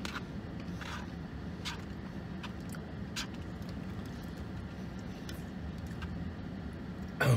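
A steady low hum inside a car's cabin, the car's idling running sound, with a few faint clicks of a plastic fork against a takeout bowl as he eats, and one louder knock right at the end.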